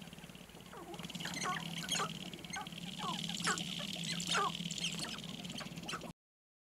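Sharp-tailed grouse calling on a lek: many short, sharp clucking and cackling notes from several birds over a steady high buzz. All sound cuts off suddenly near the end.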